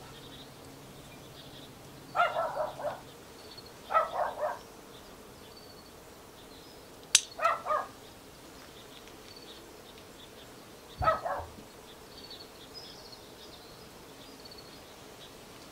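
A dog barking in four short runs of three or four barks each, with faint bird chirps in the background. A single sharp click comes just before the third run.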